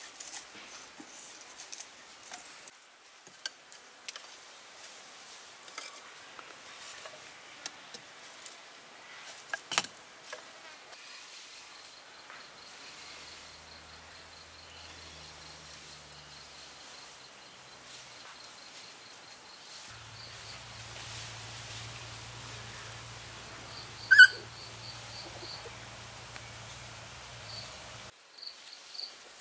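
Forest insects trilling steadily in pulses, with scattered small clicks and snaps and one louder sharp click about three-quarters of the way through.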